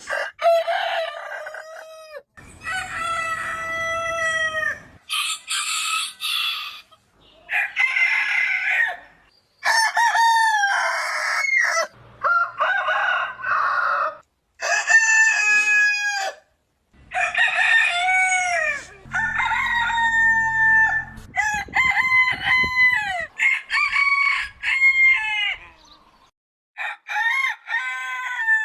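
Roosters crowing one after another, about a dozen crows cut together with abrupt silent breaks between them, many from Aseel game cocks. Each crow lasts a couple of seconds and drops in pitch at its end.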